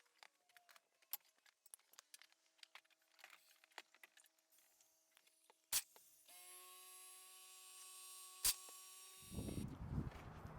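Tire-mounting work on a tire machine: scattered light metallic clicks and taps, then a steady machine hum for about three seconds with a sharp click in it. Near the end a louder rush of noise takes over.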